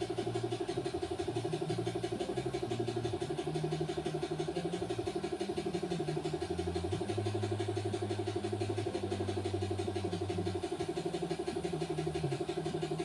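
A small motor running steadily, a constant hum with a fine rapid pulse and lower tones that change pitch every second or two.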